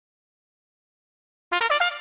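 Dead silence, then about a second and a half in a brass fanfare sound effect starts: a quick run of rising notes leading into a held note.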